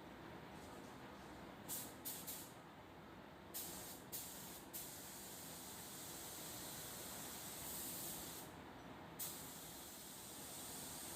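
Compressed-air paint spray gun hissing as the trigger is pulled: a few short bursts, then long steady passes with a brief pause, during painting of car body panels.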